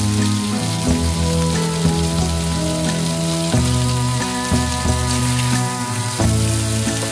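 Chicken pieces sizzling in oil in a wok, a steady crackling hiss, under background music with sustained notes.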